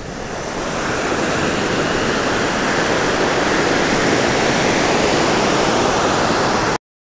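Sea surf breaking and washing up a sandy beach: a steady rush of waves that builds over the first second, then cuts off suddenly near the end.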